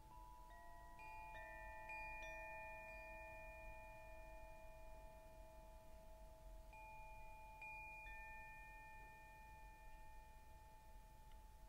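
Quiet background meditation music of soft, chime-like notes that ring on for several seconds and overlap, with new notes coming in about a second in and again about two-thirds of the way through.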